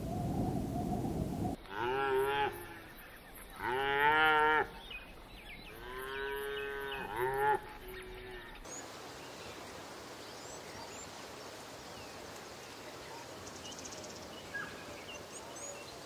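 A cow mooing three times: long, pitched calls that rise and fall, the last one the longest, a second or two apart.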